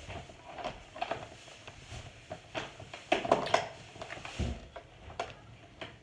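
Irregular handling noise of clicks, knocks and rustles, loudest as a quick cluster of sharp clicks about three seconds in, followed by a dull thump; the upright vacuum's motor is not running.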